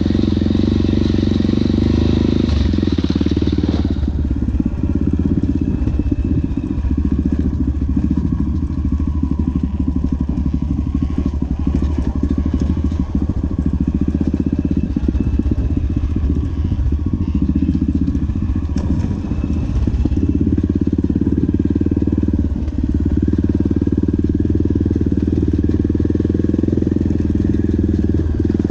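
Single-cylinder four-stroke Honda XR dirt bike engine running under way along a rough dirt trail, heard from the rider's seat, its note shifting with the throttle about four seconds in and again past the middle.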